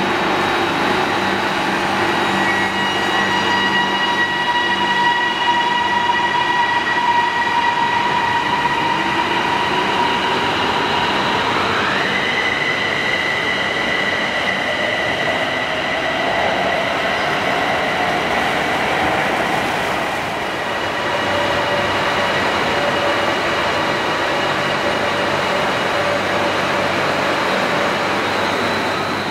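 Siemens Desiro electric train pulling out of the platform and gathering speed. Its electric drive gives a steady high whine that jumps up in pitch about twelve seconds in, while lower tones rise slowly under a running rumble.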